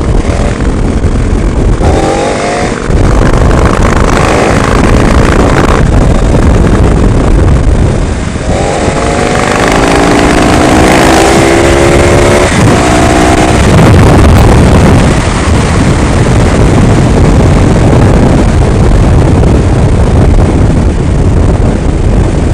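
Motorcycle engine accelerating hard, its pitch climbing twice, briefly about two seconds in and again from about eight to thirteen seconds in, under constant heavy wind rush.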